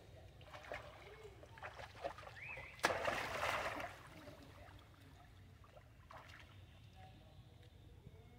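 Long-tailed macaques splashing in a shallow pool. After a few small splashes there is a sharp splash about three seconds in and about a second of churning water, then gentle lapping and trickling.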